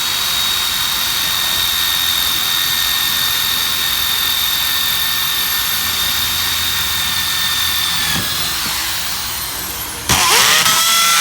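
Electric drill running at high speed with a multi-purpose drill bit cutting a hole, a steady high whine over grinding noise. The whine dips about two-thirds of the way in, then the drill starts again suddenly and spins up with a rising, louder whine.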